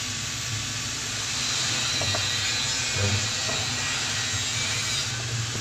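Steady hiss of background noise that gets a little louder about a second and a half in, with a faint click about two seconds in.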